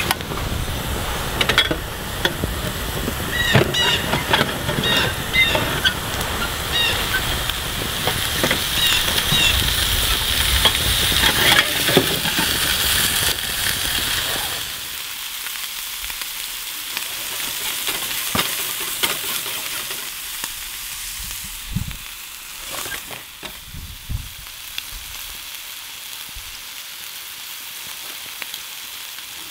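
Food frying and sizzling in an uncoated stainless steel skillet over a campfire, with occasional clicks and scrapes from a utensil in the pan. A low rumble under the sizzle stops suddenly about halfway through.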